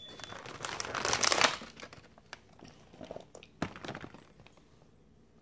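Cardboard cookie boxes being handled, with rustling and crinkling that is loudest about a second in, then a few light taps and rustles that die away.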